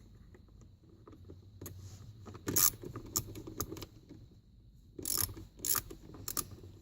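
Small socket ratchet clicking in short runs as it drives in the screws of the steering column cover. The clicks come scattered at first and get busier over the last couple of seconds.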